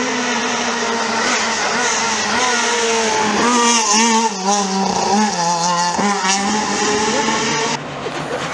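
Renault Clio rally car at full throttle as it approaches and passes close by; the engine note climbs and drops back several times with quick gear changes. Near the end the sound cuts abruptly to a quieter, more distant engine.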